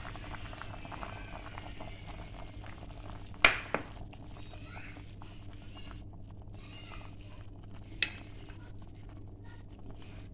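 A pot of pindang serani stew simmering and bubbling as a spatula stirs it, over a steady low hum. Two sharp knocks stand out, about three and a half seconds in and again about eight seconds in.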